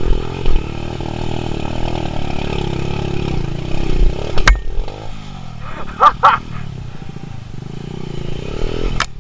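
Honda Win motorcycle engine running under load as the bike climbs a steep, slippery dirt track. About four and a half seconds in it drops to a quieter, uneven running. Two short high yelps come about six seconds in.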